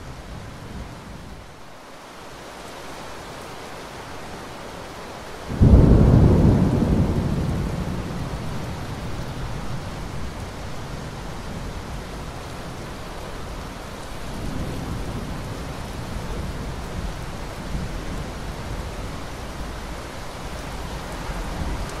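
Thunderclap about a quarter of the way in, starting suddenly and rumbling away over several seconds, with a second, weaker low rumble past the middle. Steady rain hiss underneath.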